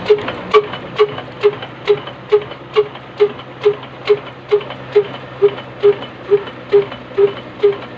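22 HP Kala slow-speed diesel engine running steadily at about 300 rpm, with an even, heavy beat of a little over two strokes a second and a sharp click on each beat.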